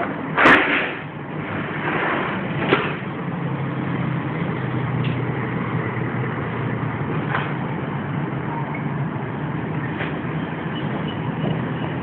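Steady low hum of a vehicle engine and traffic from the road below, with a sharp knock about half a second in and a smaller one a couple of seconds later.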